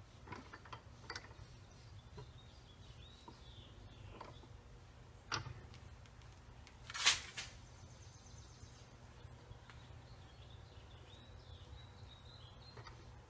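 A few scattered metal clicks and knocks as the nut, bolt and copper cable end are handled and lined up in a bench vise, the loudest about seven seconds in. Faint bird chirps in the background.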